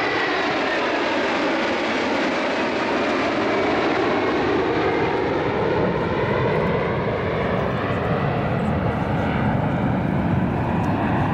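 A formation of F-16 fighter jets passing overhead and moving away: a steady jet roar whose tone slides downward as they go by. A deeper rumble builds near the end.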